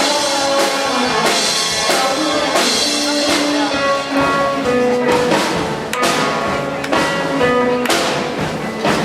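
Live rock band playing an instrumental passage with electric guitar and drum kit, without vocals.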